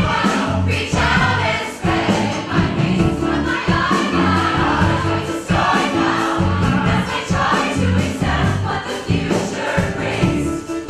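Large mixed choir of men and women singing together in harmony over a live band of piano, bass and drums.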